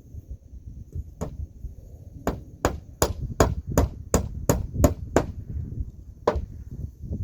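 Hammer blows on wood, driving nails: one blow about a second in, then a run of about eight quick blows at roughly three a second, and one more a second later.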